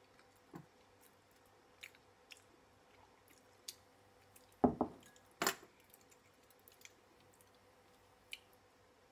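Quiet eating-and-tableware sounds: scattered small clicks and faint mouth sounds, then a dull thud and a sharp knock about halfway through, fitting a glass of orange juice set down on a wooden counter.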